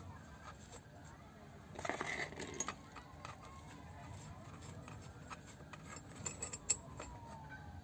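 Tools and small metal parts of a power steering pump clinking and rattling during hand disassembly, with scattered sharp clicks, a busier clatter about two seconds in and one sharper click near the end.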